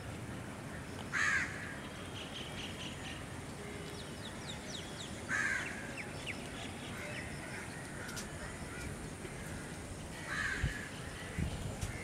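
Three short, harsh bird calls a few seconds apart, with faint chirps in between, over a steady outdoor hiss. A few low thumps come near the end.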